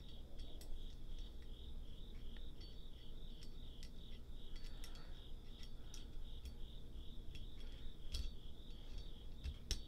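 Steady high chirping of an insect, a few chirps a second, with a few faint sharp clicks of small metal pistol parts being handled, the clearest two near the end.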